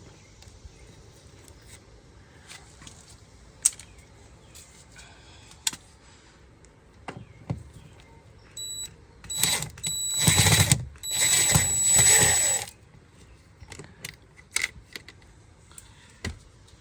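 Plastic door-panel trim being pried loose: scattered light clicks and snaps. From about eight to twelve seconds in comes a loud rasping noise, broken by a short gap, with a thin high whine running through it.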